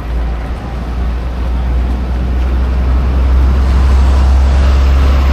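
Steady low road-traffic rumble with a noisy hiss above it, growing louder over the first three or four seconds and then holding.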